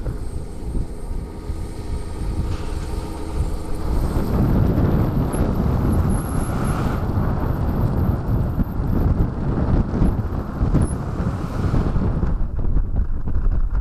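A vehicle engine hums steadily for about four seconds. It then gives way to a loud rush of wind and road noise from a moving vehicle.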